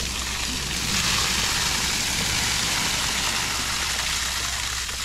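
Rainwater pooled in a sagging shade tarp pouring off its edges in sheets and splashing onto grass: a steady rushing that swells about a second in and eases near the end.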